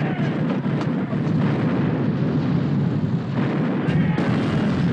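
Film battle soundtrack of a sailing warship in action: loud, continuous din of ship's cannon fire, with a sharp report near the end.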